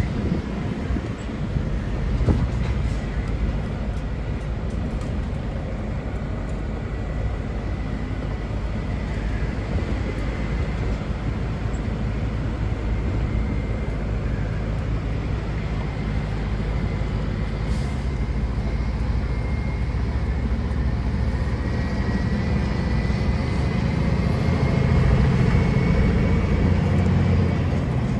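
Scania truck's diesel engine running steadily under a heavy load of about 55 tonnes, heard inside the cab together with tyre and road noise; it grows louder for a few seconds near the end.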